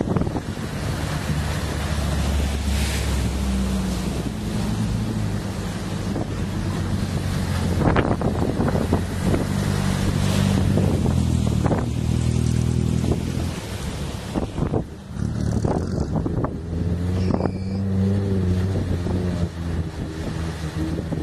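4x4 engines running under load and revving as the vehicles plough through deep floodwater, with the engine pitch rising and falling in the second half. Water surges and splashes around the bodies, and wind buffets the microphone.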